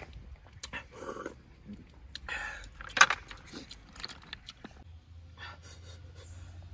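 Snail shells clicking and clattering as they are handled in a woven bamboo basket and on a plate, mixed with chewing; one sharper, louder clatter about three seconds in.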